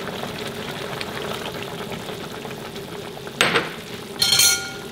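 Vegetable broth bubbling steadily in a stainless wok. About three and a half seconds in there is a sharp knock, then near the end a brief ringing clink of utensils against a glass bowl.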